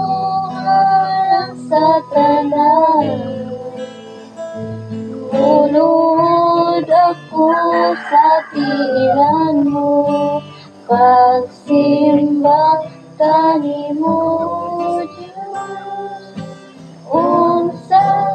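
Female singing with acoustic guitar accompaniment: a slow sung melody of held notes over steady strumming.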